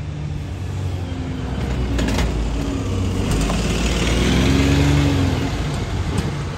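Alexander Dennis Enviro400 diesel double-decker bus pulling away from the stop and passing close by, its engine rising in pitch as it accelerates. It is loudest about four to five seconds in as the bus goes past, then eases off as it moves away. A few sharp clicks come near two and three seconds in.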